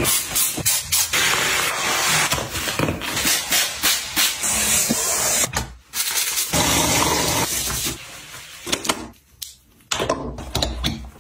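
Trigger spray bottle of cleaning liquid sprayed onto a faucet and countertop in a quick series of short hissing squirts. After a break about six seconds in, gloved hands rub and scrub a metal pop-up drain stopper, more quietly and in patches.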